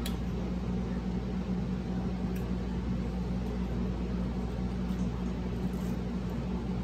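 Steady low hum with an even hiss over it, and a few faint mouth clicks from chewing fried fish.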